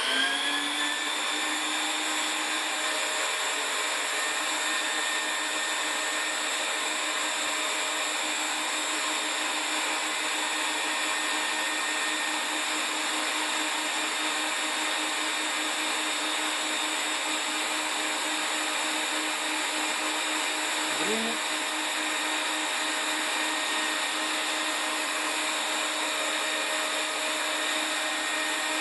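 Vacuum turbine motors of a homemade central vacuum cleaner spinning up right at the start, with a quickly rising whine. They then run at a steady high whine over a strong rush of air.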